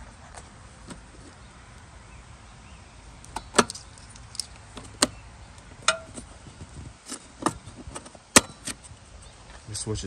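Scattered sharp clicks and snaps of plastic and metal as the seat safety switch of a Toro TimeCutter mower is worked loose by hand from its mount under the seat. They are mostly in the second half, with the loudest a little after three and a half seconds and near eight and a half seconds.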